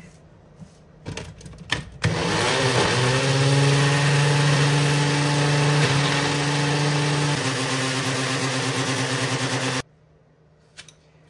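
A few clicks as the blade cap is screwed onto a personal blender's cup and the cup is seated on the base. Then the blender's motor runs for about eight seconds blending a smoothie. It spins up at the start, drops slightly in pitch near the end, and cuts off suddenly when the cup is released.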